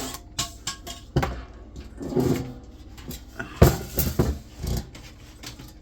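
Computer parts and metal casing being handled and set down: a run of sharp knocks and clatters, the loudest a few hits clustered in the second half.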